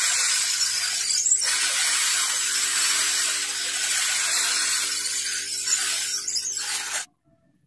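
A handheld heat tool blasting heat onto a corn cob and scorching the kernels: a steady, loud hiss that cuts off abruptly about seven seconds in.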